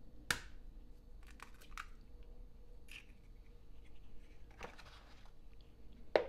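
Eggs handled and lifted out of a cardboard egg carton with a few light clicks and taps, then an egg cracked against a plastic mixing bowl near the end, the loudest sound, a sudden crack.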